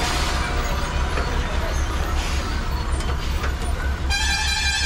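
A heavy lorry's engine running with a low, pulsing rumble. About four seconds in, a vehicle horn sounds and holds to the end.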